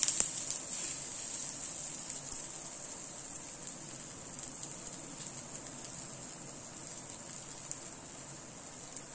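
Ragi dosa sizzling on a hot flat dosa griddle just after being flipped: a steady hiss that slowly grows quieter.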